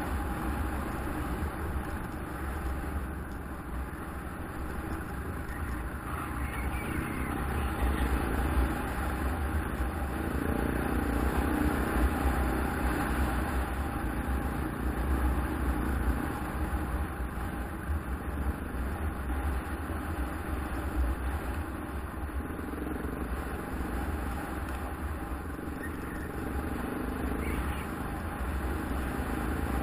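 KTM 690 Enduro's single-cylinder engine running steadily while being ridden, its loudness swelling and easing slowly.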